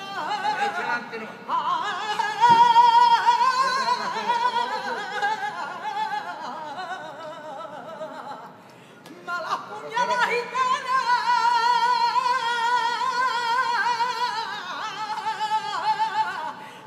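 A saeta: a single voice singing an unaccompanied flamenco prayer to the halted paso, in two long ornamented phrases with heavy vibrato and a short breath between them about halfway through.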